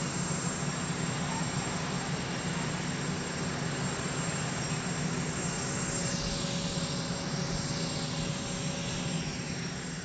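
Aircraft engines running steadily, a low drone with a thin high whine, and high whines falling in pitch a little past the middle.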